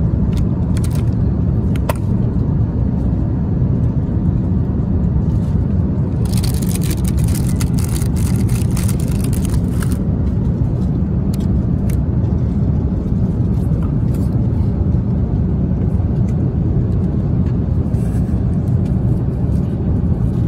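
Steady low drone of an airliner cabin in cruise. About six seconds in, plastic and foil meal packaging crinkles for several seconds, with a few light clicks earlier.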